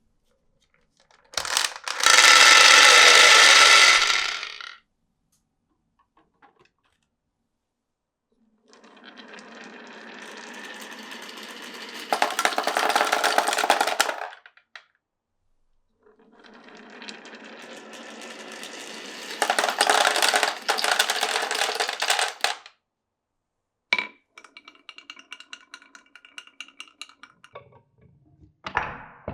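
Glass marbles rolling and clattering along a wooden and plastic marble run. There is a loud clattering stretch early on, then two long rolls that grow louder as they go. After a sharp click comes a quick patter of small clicks, and a knock near the end.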